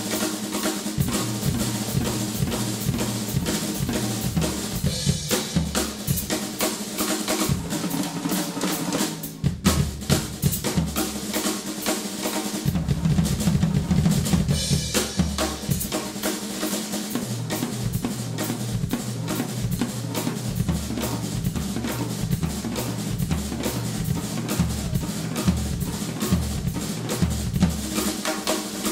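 Rock drum kit played steadily and hard, with bass drum, snare and cymbals keeping a driving beat. Bass notes move underneath as part of a full-band instrumental passage.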